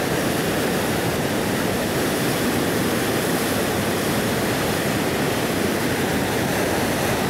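Colorado River whitewater rushing, an even, unbroken noise that keeps a steady level throughout.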